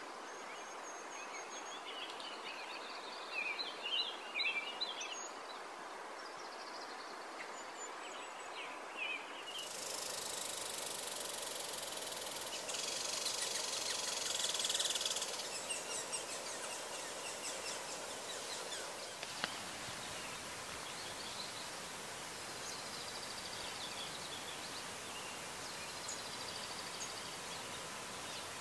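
Steady rush of a nearby mountain stream, with a quick run of bird chirps about three to five seconds in and a few high, thin bird calls near the end. About ten seconds in, the rush changes abruptly to a louder, hissier one.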